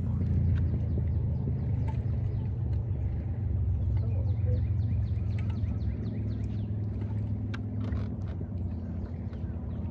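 Steady low hum of a boat motor running.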